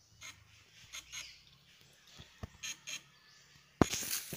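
Faint scattered clicks and rustles, then about four seconds in a sudden loud splashing of shallow stream water as someone wades through it.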